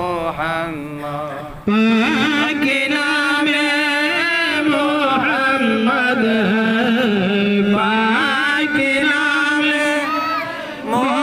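A man's voice chanting Arabic salawat, praise of the Prophet Muhammad, in long, wavering, drawn-out notes, with a short break about a second and a half in and a brief dip near the end.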